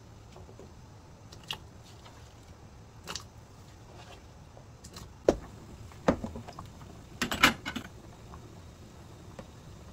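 Kitchen utensils and dishes clinking and knocking a handful of times, with a quick cluster of the loudest knocks about seven seconds in, over a low steady hum.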